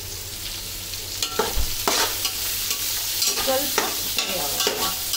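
Chopped beans and carrot being stir-fried in a hot pan: a steady sizzle, with a spatula scraping and knocking against the pan several times from about a second in.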